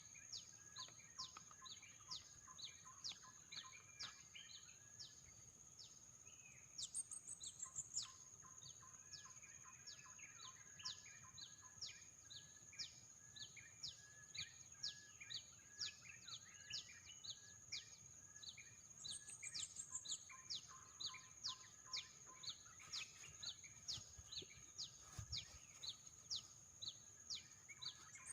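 Birds calling faintly: a string of short, quick down-slurred chirps, two or three a second, with a brief higher trill now and then, over a steady high-pitched whine.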